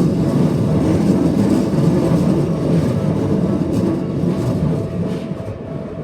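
A train rolling slowly past: a steady rumble of wheels on rail that begins to die away about five seconds in.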